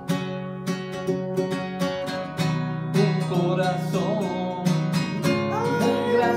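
Acoustic guitar strummed in a steady rhythm, several strokes a second, playing chords as a song accompaniment, with the chord changing a few times.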